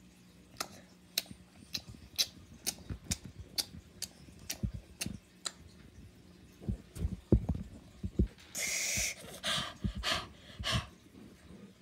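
Small plastic toys tapped on a wooden tabletop in a steady rhythm of about two taps a second, then a few duller knocks. Near the end come several short breathy bursts, the first and longest about nine seconds in.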